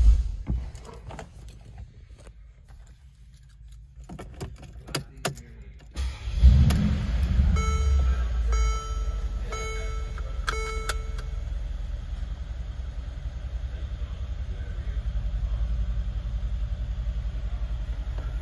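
Mercedes-AMG G63's 5.5-litre twin-turbo V8 starting about six seconds in with a brief surge, then idling steadily with an even low pulse. Before the start there are a few clicks, and just after it a dashboard warning chime sounds about four times.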